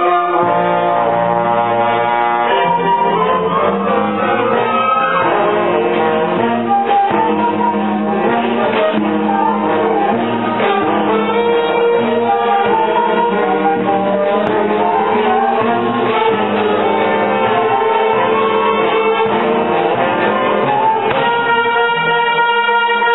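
Music with brass instruments, playing continuously at a steady level.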